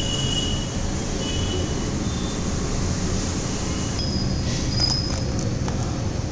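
Steady low background rumble, with a few faint clinks about four to five seconds in.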